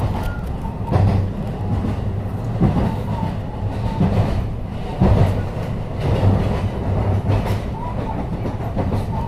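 Running noise heard inside a JR West 223 series 6000-subseries electric train moving slowly through station trackwork: a steady low rumble with the wheels knocking over rail joints and points every second or two, and a faint whining tone that comes and goes.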